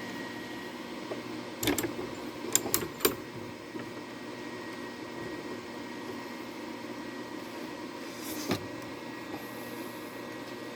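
Steady fan hum, with a few sharp metal clicks: one under two seconds in, a quick cluster of three around three seconds in, and one more near the end.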